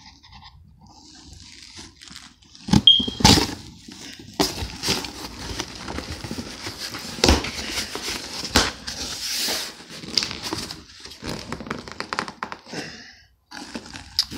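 Packing tape being ripped off a cardboard shipping box, with the cardboard rustling and scraping. There are several loud tearing rips and knocks, the loudest about three seconds in and again around seven to nine seconds.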